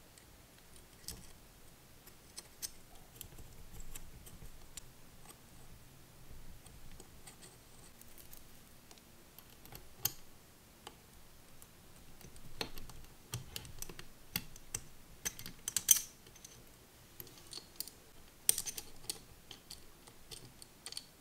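Scattered small metallic clicks and rattles as a miniature steel roller timing chain and small metal parts are handled and fitted over the cam sprockets of an all-metal 4-cylinder model engine, with a few sharper clicks in the second half.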